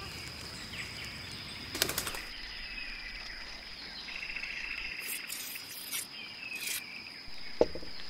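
Forest ambience: birds chirping over a steady high-pitched tone, with a short stretch of paper rustling in the second half and two sharp clicks, the louder near the end.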